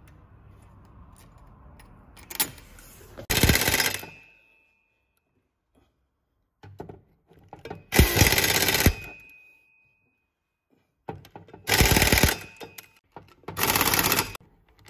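Pneumatic wrench run in four short bursts, tightening the bolts of a driveshaft flange, with near silence between the bursts.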